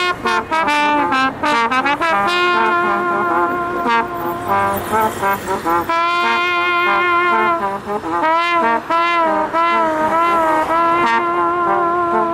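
Trombones playing a slow melody with long held notes and vibrato.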